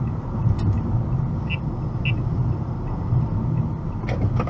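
Steady low road and engine rumble inside a moving car's cabin. Two brief high beeps sound about a second and a half and two seconds in.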